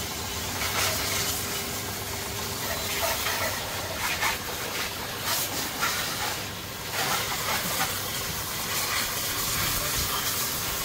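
Water jet spraying onto a motorbike being washed: a steady hiss that dips briefly in the middle.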